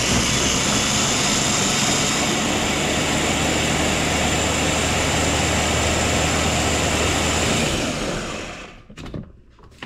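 Blender motor running at a steady speed, blending milk, herb cream cheese and Parmesan into a sauce. It winds down and stops at about eight seconds.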